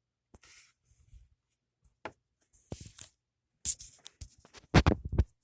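Handling noise of small parts on a tabletop: scattered light clicks and scrapes, then a quick run of knocks near the end.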